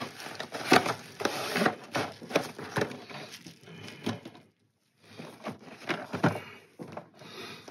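Plastic bubble wrap and a cardboard model-wagon box being handled: irregular crinkling, rustling and small clicks, which stop briefly about halfway through.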